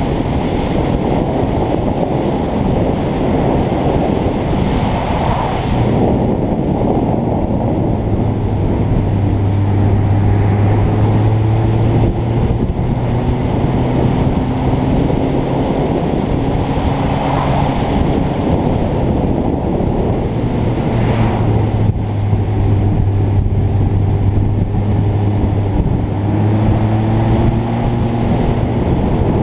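Heavy wind noise buffeting the microphone of a camera travelling at road speed on a motorcycle, with the engine's steady hum beneath it; the engine's pitch rises several times as it accelerates through the gears.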